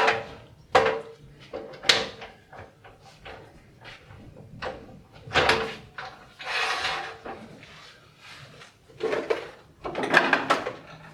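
Objects being handled on a workshop bench: a few sharp knocks in the first two seconds, then several longer sliding and scraping sounds.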